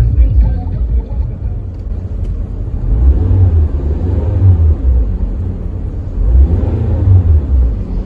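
Car engine revved with the accelerator pedal: a steady low rumble that swells up and falls back, most strongly about three seconds in and again about six seconds in.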